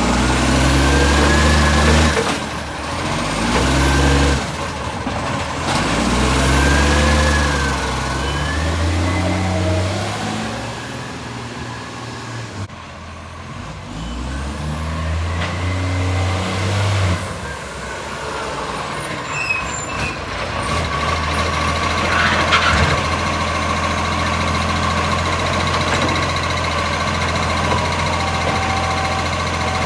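Garbage truck's diesel engine with an exhaust leak, revved up and dropped back several times, then settling to a steady idle in the second half.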